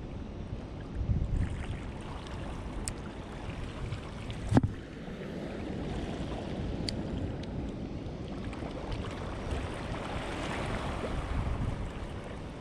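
Wind rumbling on the microphone with the wash of the sea, swelling in the second half. A single sharp click comes about four and a half seconds in.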